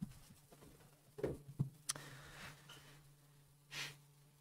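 Quiet room with a steady low hum, a few soft knocks and rustles a little over a second in, and a short breath into the lectern microphone near the end.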